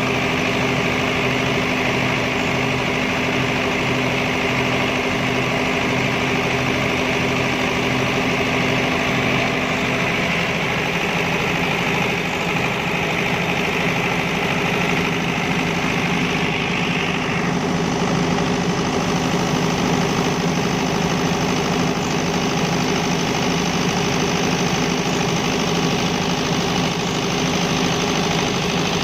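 Diesel generator set's engine running steadily at a constant speed. A high hiss in the mix stops a little past halfway through.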